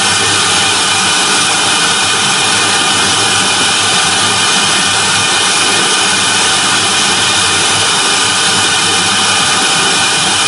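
CNC router spindle running and its bit cutting into a turning Styrofoam (EPS) block: a steady, even, hissing machine noise with no let-up.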